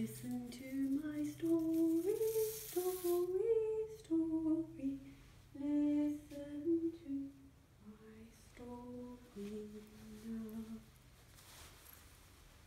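A voice humming a slow, gentle tune without words, holding each note and stepping up and down the scale, which ends about eleven seconds in.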